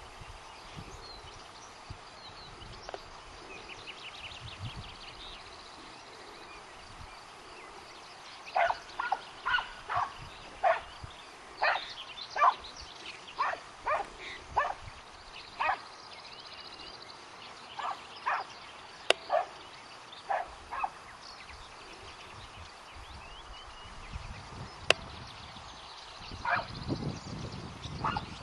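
Hunting hounds barking on a hare's trail: a long run of about twenty irregular barks, with a few more near the end. A couple of sharp clicks cut through the barking.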